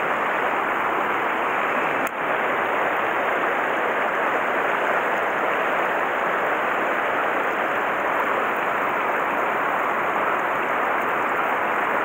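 Mountain stream water rushing steadily, an even hiss of flowing water, with a brief click about two seconds in.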